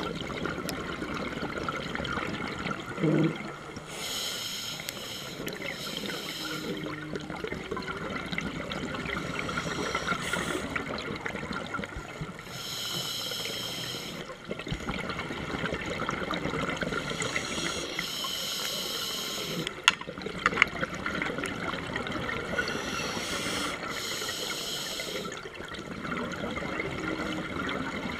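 Breathing heard underwater: bursts of bubbly hissing every four to five seconds over a steady fine crackling.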